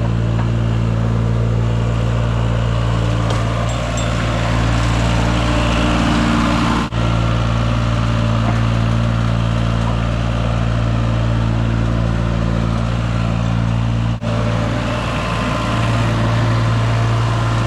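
Loader engine running steadily while driving a power broom attachment, with an even hum and a rushing noise over it. The sound breaks off for an instant twice.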